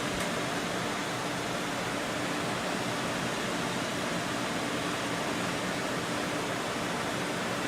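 Custom-built desktop gaming PC's fans running as a steady airy whoosh with a faint hum underneath. The owner puts the noise down to a PWM rear exhaust fan he hasn't yet set up properly.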